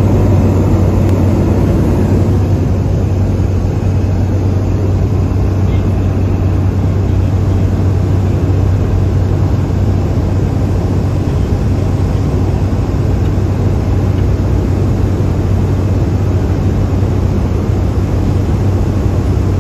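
Steady cabin drone of a Cessna 208 Caravan's Pratt & Whitney PT6A turboprop engine and propeller on approach, heard from inside the cabin: a strong, even low hum over a dense rushing noise.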